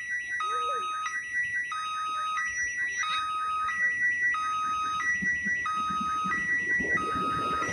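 Railway level-crossing warning alarm sounding a two-tone electronic chime, a high and a low note alternating about every 0.6 seconds.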